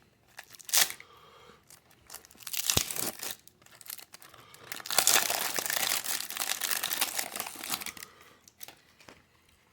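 Wrapper of a 1989 Donruss jumbo baseball-card pack being torn open and crinkled: a few short crackles at first, then a longer stretch of continuous crinkling and tearing about halfway through that fades out near the end.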